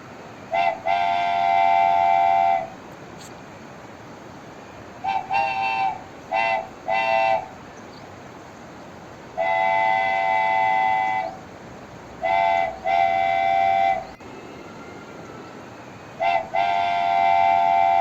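Wooden train whistle blown in a series of toots, each sounding a chord of several close pitches that slides up slightly as it starts. The toots mostly come in pairs, a short one then a longer one lasting one to two seconds. There is also a run of four short toots, and a single long blast about halfway through.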